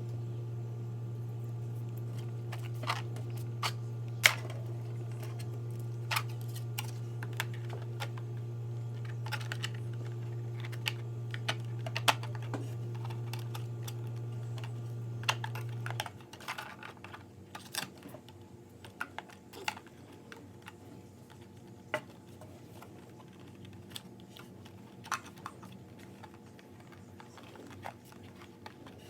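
Scattered light clicks and taps of hands working on a radio-controlled car's parts while its ride height is adjusted. A steady low hum underneath cuts off about halfway through.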